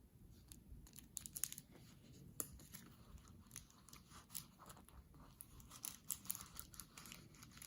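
Faint rustling and crinkling of paper and plastic sticker packaging being handled, with scattered light clicks and taps.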